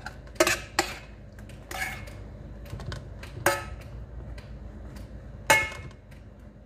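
Metal spoon stirring in a stainless steel pan, clinking and scraping against its side about five times with a short metallic ring; the loudest clinks come about three and a half and five and a half seconds in.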